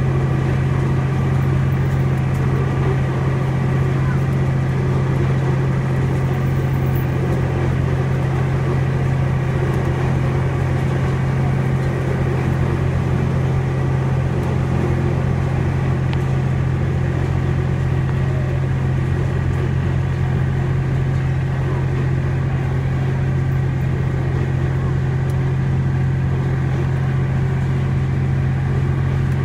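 Steady rumble of a moving train heard from aboard a passenger car, with a constant low drone underneath that does not change.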